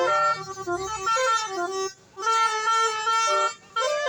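Bus 'telolet basuri' multi-tone air horn playing a melody, several horn notes sounding together and stepping up and down in pitch. It breaks off briefly about two seconds in and again near the end.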